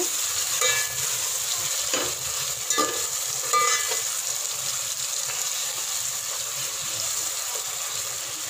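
An onion, tomato and green-chilli masala sizzling as it fries in oil in a metal pot, stirred with a metal spoon. Several sharper scrapes of the spoon against the pot stand out in the first four seconds over the steady sizzle.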